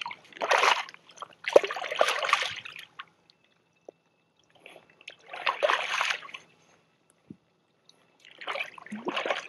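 Water splashing in four short bursts a few seconds apart, as a speckled trout thrashes at the surface while held on a fish grip.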